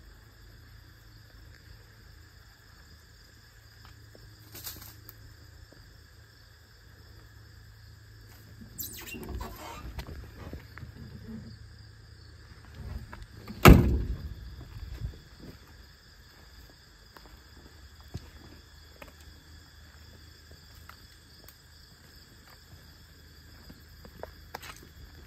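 Car door of a 1963 Chevrolet Impala SS convertible shut with one loud thump about fourteen seconds in, after a few seconds of clunks and handling rustle.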